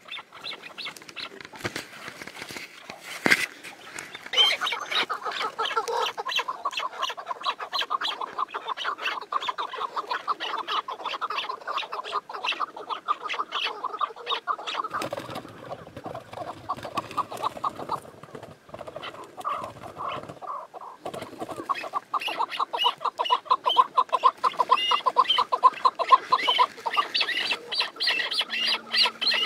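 Chukar partridges calling: a long run of rapid, rhythmic chuk notes. Higher, louder notes join in over the last several seconds. A single sharp click about three seconds in.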